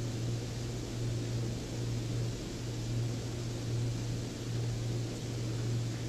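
A steady low hum with a faint hiss, swelling and easing slightly every second or so.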